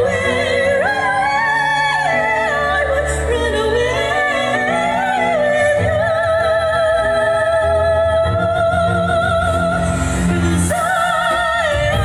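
Two women singing a duet into microphones, in a classical style with wide vibrato, over a steady instrumental accompaniment with bass. One long note is held through the middle of the phrase, and a new phrase starts near the end.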